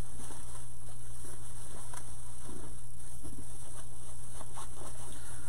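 Faint rustling and crinkling of ribbon and artificial pine greenery being handled and arranged on a wreath, over a steady electrical hum and hiss.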